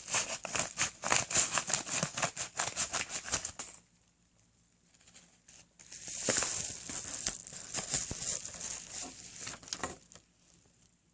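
Packaging crinkling and crackling as a mailed package is handled and opened, in two spells: rapid crackles for the first few seconds, a short pause, then more rustling and crinkling until near the end.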